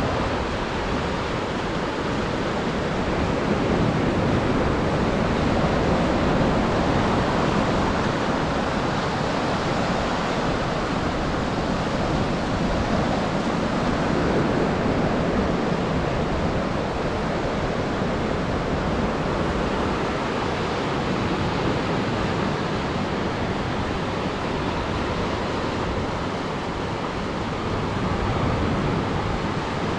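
Atlantic surf breaking and washing ashore in a steady roar of noise, swelling louder a few seconds in and again around the middle.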